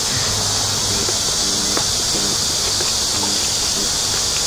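A steady, high-pitched insect chorus in summer woodland, with a faint click about two seconds in.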